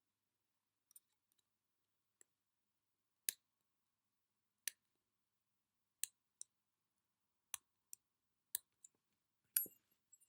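Lock and picks being handled, giving a string of faint, sharp, separate clicks about a second apart, with the loudest click near the end.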